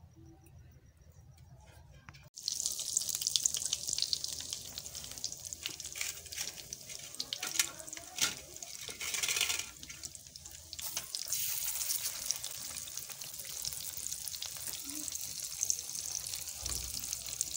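Fish frying in hot oil in a wok: loud sizzling starts suddenly about two seconds in as the fish goes into the oil, flares up briefly near the middle, and keeps going.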